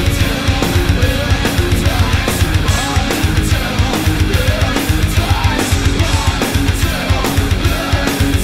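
Loud heavy-metal music with guitar over a fast, driving beat.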